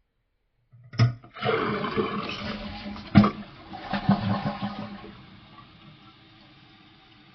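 Toilet being flushed: a sharp click of the handle about a second in, then loud rushing water with a knock partway through, easing after about four seconds into a fainter steady hiss as the tank refills. This is a test flush of a newly fitted flapper valve.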